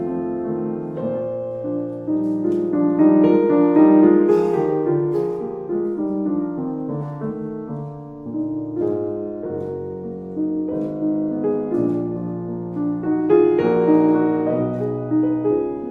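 Piano music, with notes held and overlapping; it swells louder about four seconds in and again near the end.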